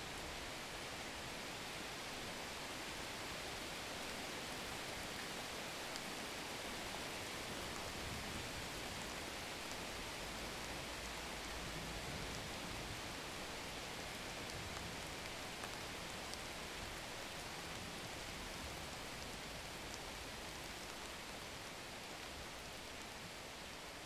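Steady rain falling, an even hiss with a few single drops ticking out above it.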